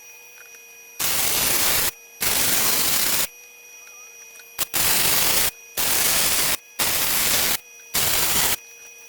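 MIG welder arc crackling in six short bursts of about a second each, with brief pauses between them: short welds being laid on 3/16-inch steel angle iron with an ArcCaptain MIG 200.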